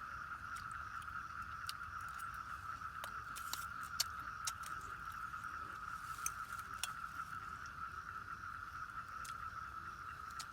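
Campfire crackling, with sharp irregular pops, over a steady high-pitched drone.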